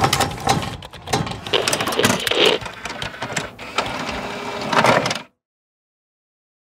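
Sound effects of an animated logo intro: a busy run of rapid clicks and mechanical ticking with two swells, about two and a half and five seconds in, then a sudden cut to silence.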